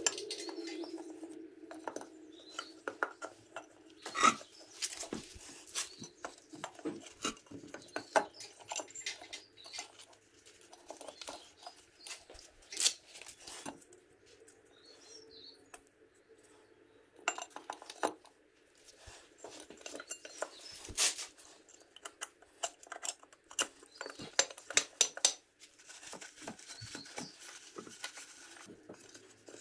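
Irregular light metallic clinks and clicks as a clutch release fork, its bearing and metal retainer clip are handled and fitted onto the pivot pin inside a BMW manual transmission's aluminium bellhousing.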